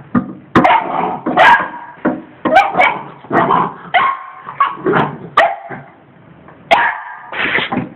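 A dog barking over and over in quick, irregular yaps at its own reflection in a mirror, with a short pause about six seconds in.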